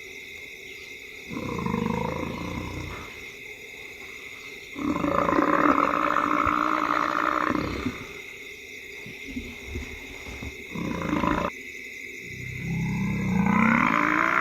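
Lions growling and snarling while attacking a buffalo bull, mixed with the buffalo's own bellowing, in several loud bouts. The longest bout lasts about three seconds, and another starts with a rising call near the end.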